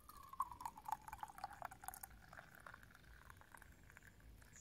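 A drink pouring in a steady stream from a flask's spout into a stainless-steel mug, splashing and bubbling. The pitch of the pour rises as the mug fills.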